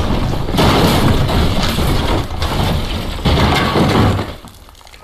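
A ceiling caving in: boards and plaster crashing down with a person, a long run of crashing and breaking debris with several heavier impacts. It dies away about four seconds in.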